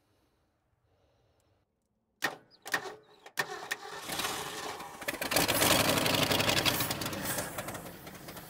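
A 360 cubic-inch FE V8 is started on gasoline poured into the intake. After a few sharp knocks about two seconds in, it catches and runs roughly for several seconds, loudest midway, then dies away near the end. It does not like a bit of throttle, as expected with its carburettor's accelerator pump gone.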